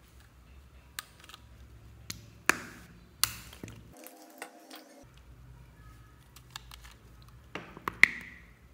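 Wet squelches and sharp pops of thick slime squeezed from a plastic squeeze bottle onto a tub of clear slime. They come scattered, a few at a time, and the loudest pop is near the end.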